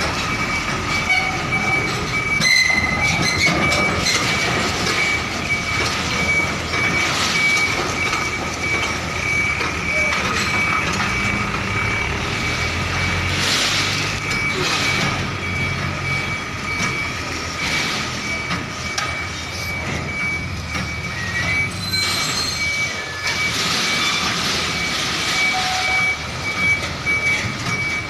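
Container truck's engine running steadily, with a low rumble and a steady high-pitched whine over it.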